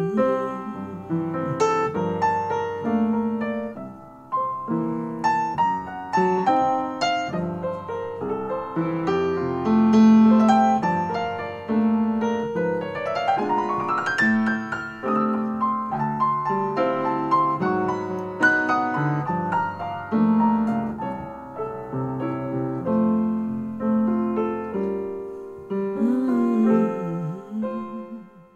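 Piano music playing, with a rising sweep of notes about halfway through.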